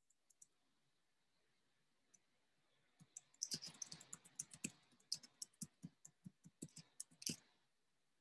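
Faint typing on a computer keyboard: a few single keystrokes at the start, then a quick run of keystrokes lasting about four seconds from around three seconds in.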